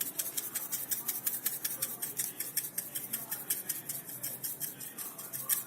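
Dried oregano being shaken or sprinkled over a bread pizza: a fast, even run of light ticks, about seven a second.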